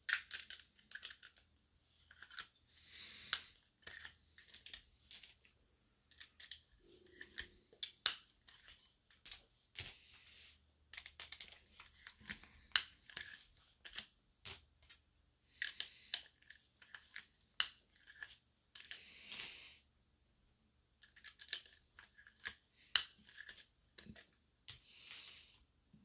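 Loaded 7.62x39 brass cartridges clinking against each other as they are picked up and set down: many separate sharp metallic clicks, some with a short high ring, with a few soft rustles between them.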